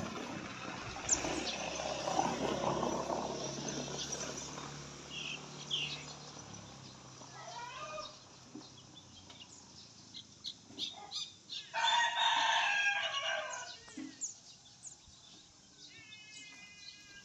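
A rooster crows, one loud call of about two seconds starting about twelve seconds in, with shorter bird calls before and after it.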